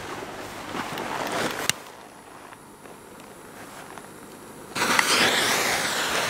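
Lit visco fuse of a 200 mm (8-inch) firework shell mortar: after a quieter stretch with faint handling, the fuse catches about five seconds in and burns with a sudden, loud, sputtering hiss.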